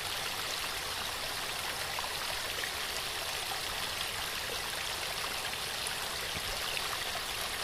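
Waterfall: water falling and splashing onto rocks in a steady, even rush with small scattered splashes.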